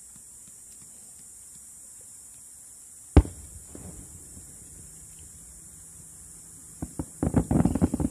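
Aerial fireworks exploding: one loud single boom about three seconds in, then a quick cluster of sharp cracks and bangs near the end.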